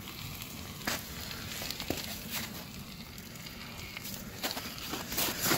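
Campfire of dry sticks and branches burning, a steady rush of flame with sharp crackles and pops every second or so, a cluster of louder pops near the end.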